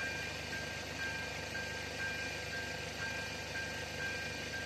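Level-crossing warning bell ringing, a repeating electronic chime-like tone about twice a second, signalling that a train is approaching while the barriers are down and the red lights flash.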